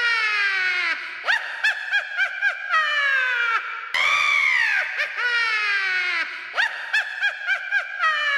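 A witch's high-pitched cackling laugh, heard twice: each starts with a long swooping shriek and a falling glide, then breaks into a run of short, quick cackles.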